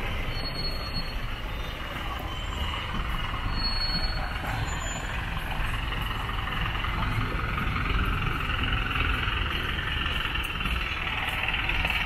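Road traffic passing close by: a lorry and cars driving past, a steady mix of engine rumble and tyre noise.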